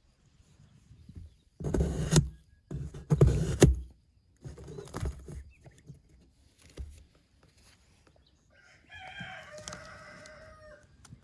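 A knife cutting through corrugated cardboard in several hard strokes during the first few seconds, then a rooster crows once near the end, a single call of about two seconds.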